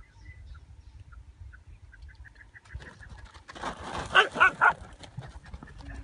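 A dog barking three times in quick succession about four seconds in, after a run of rapid high chirps.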